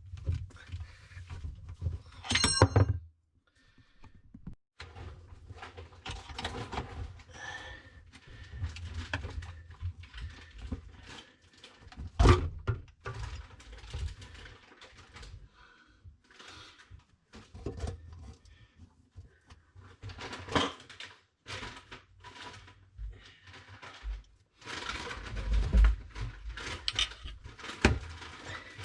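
Irregular knocks, clunks and handling noises of an old garbage disposal and its drain fittings being worked loose and taken out under a kitchen sink, with a ringing metal clink a couple of seconds in and a sharp knock about twelve seconds in.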